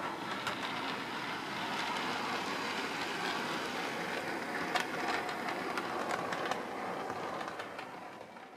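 A 00 gauge Bachmann Class 47 model diesel locomotive running along the track through pointwork: a steady rush with scattered clicks from the wheels over rail joints and points, fading out near the end.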